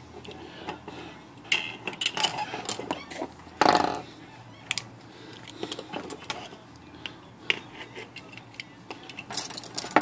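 Steel pliers clicking and clinking against a typewriter's coiled mainspring and its drum, with a few tools knocked down on a workbench. There is a louder rattling clatter just under four seconds in.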